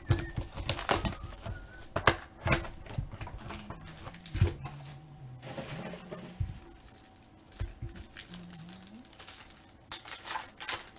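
Trading-card packs and boxes handled on a table: plastic wrappers crinkling and rustling, with sharp taps and knocks as packs and cards are set down, and a foil pack being torn open near the end.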